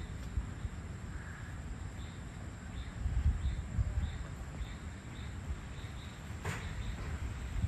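Evening insect chorus: a steady high buzz with short chirps repeating about twice a second, over a low wind rumble on the microphone. A single sharp click comes near the end.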